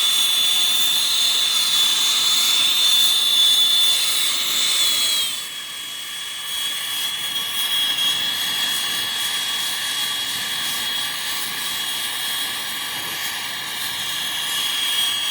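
Brazing torch flame running with a loud steady hiss and a high whistle. About five seconds in the whistle dips slightly in pitch and the sound gets a little quieter, then holds steady.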